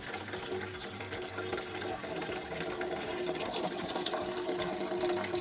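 Freshly crushed muscat grape juice running and trickling out of a wine press into a container, the grapes pressing under their own weight before the screw is turned, with a faint steady hum underneath.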